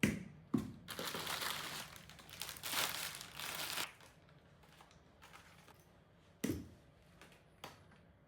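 Packaging being handled: two thumps, then about three seconds of crinkling and rustling, with another thump about six and a half seconds in and a small click near the end.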